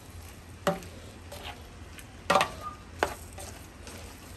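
A utensil stirring onions, celery, bell peppers and sausage in a non-stick roasting pan, knocking against the pan three times, the loudest a double knock about two and a half seconds in, over a low frying sizzle as the vegetables sauté down.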